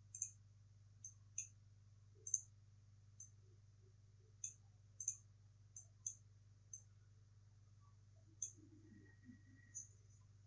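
Computer mouse clicking: scattered, irregular single and paired clicks, over a faint steady low hum.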